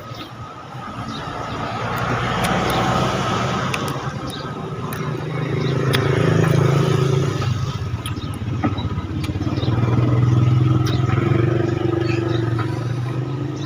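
Road traffic: motor vehicles passing close by one after another, the engine sound swelling and fading three times.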